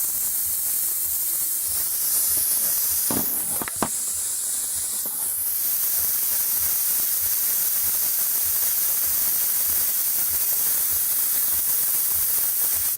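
Compressed air hissing steadily through a tire valve, with a couple of faint clicks about three to four seconds in.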